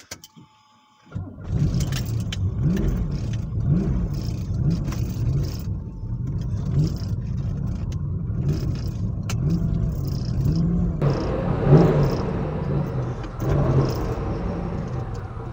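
Turbocharged Pontiac Fiero engine starting: it catches about a second in and then runs, its pitch rising and falling with several throttle blips.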